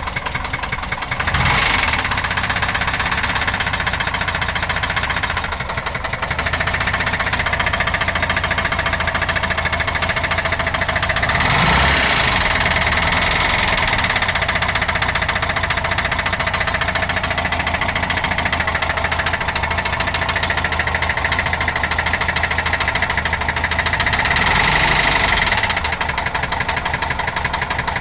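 A 1969 Porsche 912's air-cooled flat-four engine idling, revved up briefly three times: about a second and a half in, near the middle, and near the end. It is making a noise the owner calls bad.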